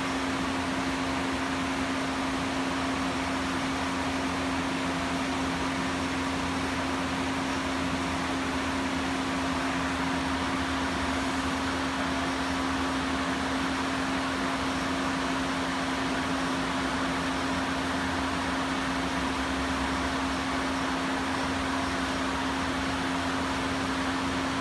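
Steady hum of running industrial machinery: one constant low tone over an even hiss, with no change in pitch or level.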